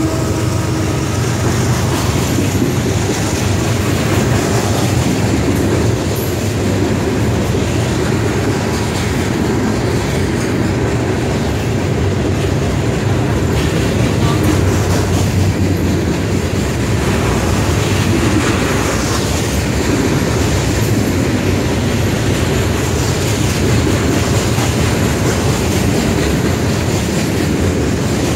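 Freight train's hopper cars rolling past at close range: a loud, steady rumble and rattle of steel wheels on the rails.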